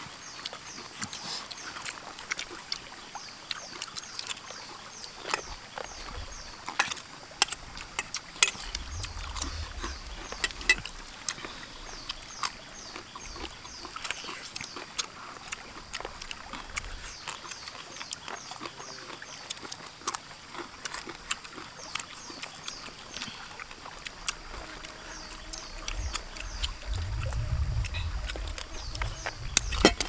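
People eating with their hands: chewing and lip-smacking with many small sharp clicks. A high chirping repeats steadily in the background, and a low rumble swells twice, about a third of the way in and near the end.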